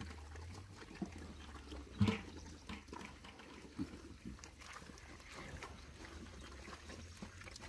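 Pigs grunting and eating at a feed trough, with one louder, brief sound about two seconds in.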